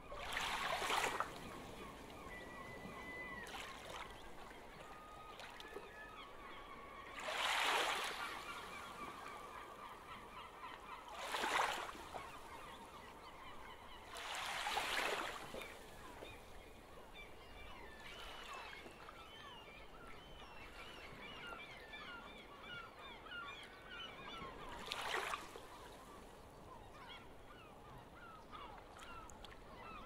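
A flock of gulls calling: a steady chatter of short cries, with five louder, harsh calls standing out, one near the start, three between about 7 and 15 seconds in, and one near the end.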